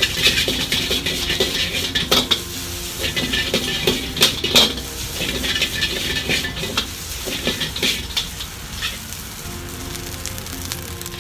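Fried rice sizzling in a wok over a high gas flame, with the ladle scraping and knocking against the wok as the rice is tossed and stirred. This is the finishing stage, just after soy sauce has been splashed onto the wok's hot side. The sizzle and clatter thin out near the end.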